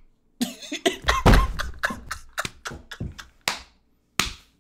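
A man laughing in short, breathy, cough-like bursts, about a dozen of them at an uneven pace.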